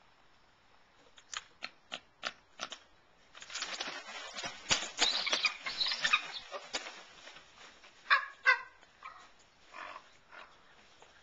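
Juvenile bald eagle flapping its wings as it steps up onto a leather glove: a dense wing rustle lasting about three seconds through the middle. A quick series of short sharp sounds comes before it, and two louder short ones follow about a second later.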